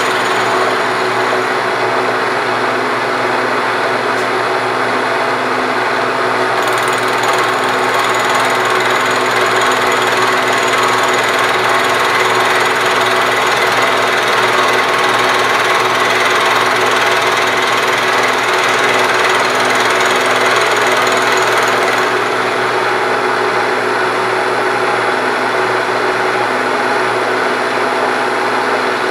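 A machine spindle running steadily as a tool takes metal off the dovetail surface of a cast-iron South Bend lathe part: a constant motor hum under continuous grinding noise.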